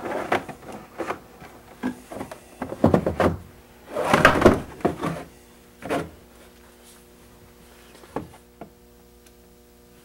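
Handling noise as a cordless screwdriver body is set down and slid into place on a wooden cabinet shelf: several knocks and clunks, a longer scrape about four seconds in, then a few light clicks.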